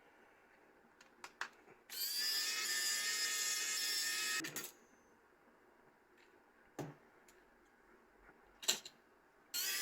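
A small high-speed electric motor whining steadily for about three seconds, starting about two seconds in and cutting off sharply, then starting again just before the end. A few light knocks and taps fall in between.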